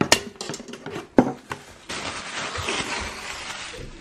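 A few light clicks and knocks from a hand handling a new white plastic toaster at its bread slots, then a soft even hiss for the last couple of seconds.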